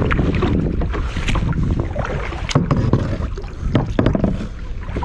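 Wind rumbling on the microphone, with scattered short knocks and clicks.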